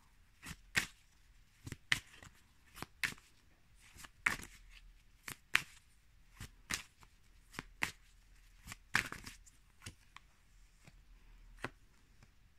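Tarot deck being shuffled by hand: irregular soft card slaps and flicks, about one or two a second, as cards are shuffled and drawn from the deck.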